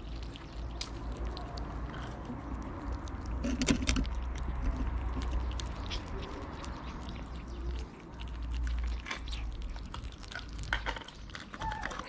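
Two kittens chewing and smacking on wet cat food close to the microphone: a steady run of small, quick wet clicks, with a low rumble underneath.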